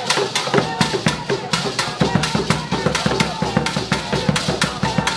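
Live traditional drumming: stick-beaten cylindrical hand drums and other percussion playing a fast, dense rhythm, with deeper bass strokes coming in about two seconds in.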